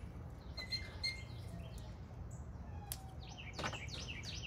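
Birds chirping faintly in the background over a low steady rumble, with a single click about three seconds in.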